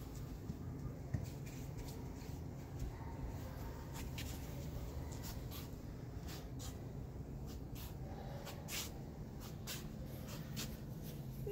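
Handling noise from a phone being panned by hand: scattered faint clicks and rustles over a low steady rumble, with one sharper click about a second in.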